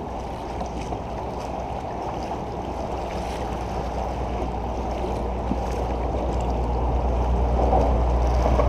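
Wind rumbling on the microphone over water lapping against a kayak hull, a steady rush that grows gradually louder.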